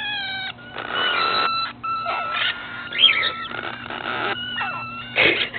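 Cockatiels calling: a string of short whistled chirps and tones, some gliding in pitch, with harsh screechy calls about a second in and again near the end.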